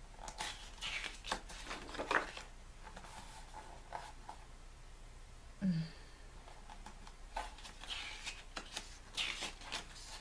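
Pages of a thick-papered photo book being turned and smoothed down by hand: rustling paper swishes in two bouts, one near the start and another about three-quarters of the way through.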